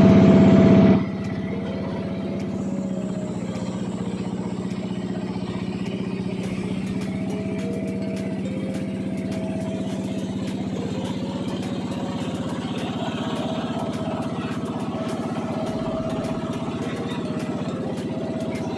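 Boat engine running steadily under way, a constant low drone that holds one pitch, with a louder burst of sound in the first second.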